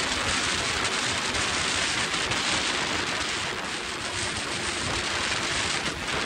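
Steady wind rush over the microphone of a moving motorcycle, with the MH Drift 150's engine running faintly underneath.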